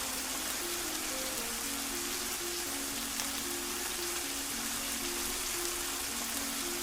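Heavy, steady rain hissing down, with a slow, soft melody of single notes playing under it.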